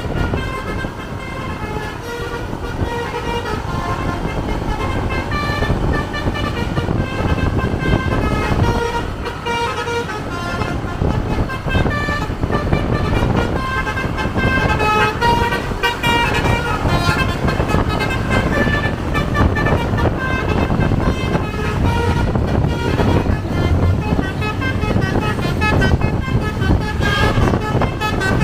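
Tour bus's basuri telolet horn playing a melody of short notes that hop up and down in pitch, over the steady low rumble of the bus engine and road.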